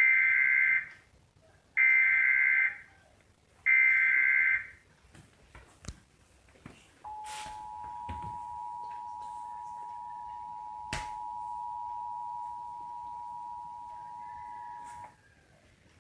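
Emergency Alert System test tones: three short bursts of the SAME digital header, each under a second and about two seconds apart. After a short pause comes the steady two-tone EAS attention signal, held for about eight seconds. Together they open an EAS Required Monthly Test broadcast.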